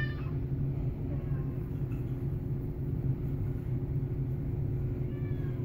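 A steady low hum and rumble of machinery, with a cat's faint meow right at the start and another near the end.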